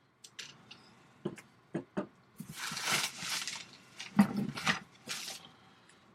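Chainsaw parts and packing material being handled while unpacking a box: a few light knocks and clicks, then rustling, with the sharpest knock about four seconds in.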